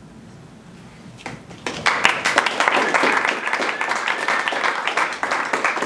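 Audience applause, starting suddenly about two seconds in after a short quiet.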